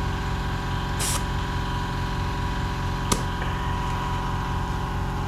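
Air compressor running steadily while air is fed into a motorcycle tire, with a short hiss of air about a second in and a single sharp click near three seconds.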